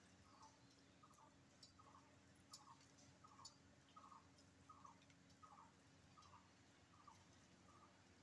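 Near silence, with a faint call repeating steadily about every 0.7 s and a few faint scattered ticks.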